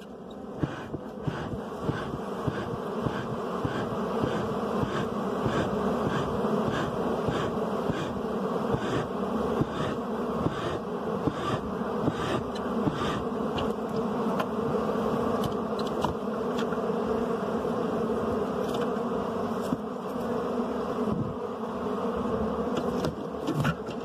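A colony of honey bees buzzing steadily while the nest is smoked and opened for honey, with frequent light knocks over the hum.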